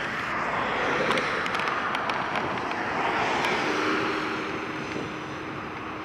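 Four jet engines of a Boeing 747 at takeoff thrust as the airliner climbs away: a broad, steady rush of engine noise that swells about a second in and again around three seconds in, then eases near the end.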